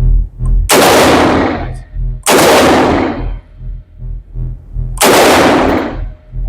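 Three rifle shots from an FN SCAR 16, a 5.56 mm semi-automatic rifle, fired one at a time: the second comes about a second and a half after the first, the third nearly three seconds later, each loud crack trailing off in a ringing echo.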